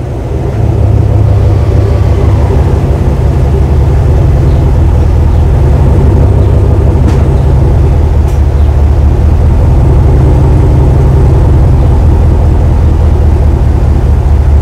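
2020 Chevrolet Silverado Trail Boss engine idling steadily, a deep even rumble, just after being started.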